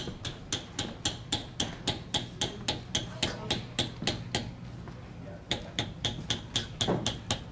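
Leather tooling: a mallet striking metal stamping tools on leather in quick, steady taps, about four a second, with a pause of about a second partway through.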